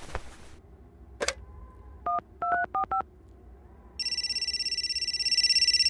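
Payphone being dialed: about five short touch-tone keypad beeps in quick succession. About four seconds in, a shrill, rapidly trilling telephone ring starts on the line and grows louder near the end.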